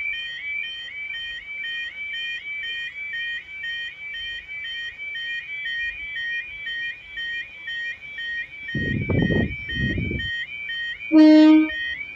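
UK level crossing audible warning alarm sounding continuously, a repeating stepped rising warble about twice a second. Near the end a train gives one short, loud horn blast, after a brief low rumble.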